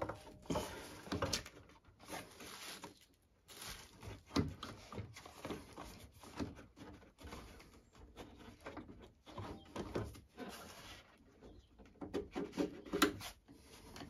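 Irregular clicks, knocks and rubbing of plastic and rubber parts as hands work the black hose off the gas valve inside a Vaillant ecoTEC Pro 24 boiler. The clicks come closer together and louder near the end.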